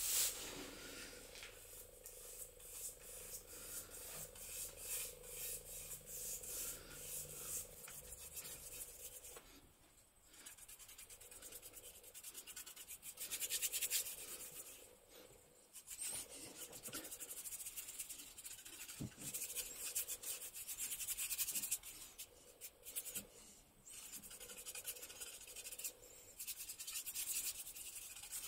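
A paintbrush brushing wet lacquer onto a wooden board: repeated strokes of the bristles rubbing along the wood, with a few short pauses.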